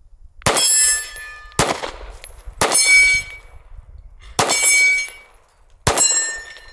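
Five pistol shots from a Staccato XC 9mm, irregularly spaced about a second apart with a longer gap near the middle, with steel targets ringing after the hits.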